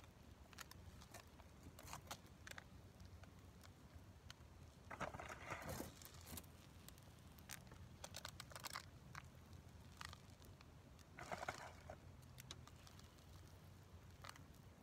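Faint pattering and rustling of wheatgrass seeds being sprinkled by hand onto moist potting soil in a plastic seed tray, with scattered small clicks and a few louder rustles about five, eight and eleven seconds in.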